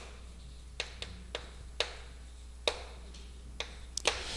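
Chalk tapping and scraping on a blackboard while words are written: a string of irregular sharp ticks, several in quick succession near the end.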